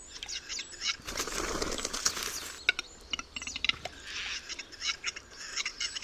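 Capercaillie wings flapping: a rushing flutter of wingbeats about a second in that lasts over a second, with a weaker flutter later, among scattered sharp clicks and short chirps.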